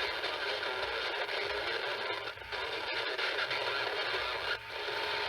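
Steady static hiss from a radio receiver with only a weak signal, with two brief dips in level.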